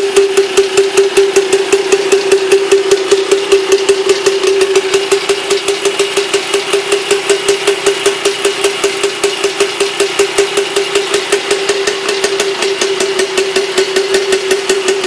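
Air-cooled single-cylinder engine of a two-wheel walking tractor running steadily at idle on a stand, with an even, rapid exhaust beat and a steady droning tone.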